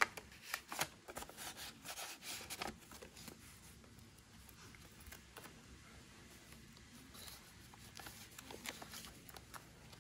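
Paper and card rustling and sliding as postcards and cards are tucked into and drawn out of a paper pocket: a flurry of soft scrapes and taps in the first few seconds, then fainter, scattered handling sounds.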